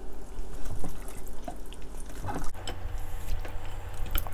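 Wet, irregular squelching and smacking of gloved hands squeezing and tossing chicken feet through a thick gochujang chili sauce in a glass bowl. A low steady hum comes in a little past halfway.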